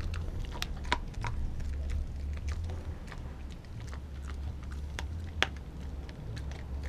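A pitbull–German Shepherd mix chewing raw meat close to the microphone, with scattered sharp crunches and clicks, the loudest a little after five seconds. A low steady rumble runs underneath.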